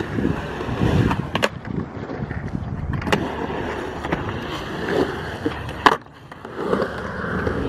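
Skateboard wheels rolling over rough concrete, with a few sharp clacks of the board along the way. The loudest clack comes about six seconds in, and the rolling drops away briefly just after it.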